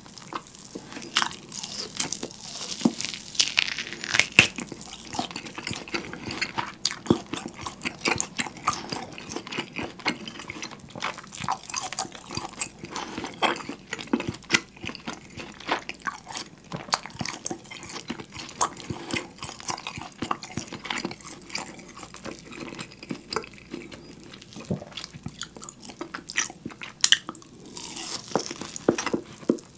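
Close-miked biting and chewing of a thick, whole seared beef steak held in the hand: meat torn off with the teeth and chewed wetly, in a dense irregular run of small clicks and crackles. The loudest tearing bites come in the first few seconds and again near the end.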